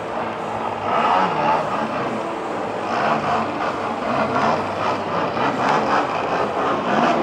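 Engine of an aerobatic model airplane flying low passes and manoeuvring, its pitch rising and falling as the throttle changes and the plane comes and goes.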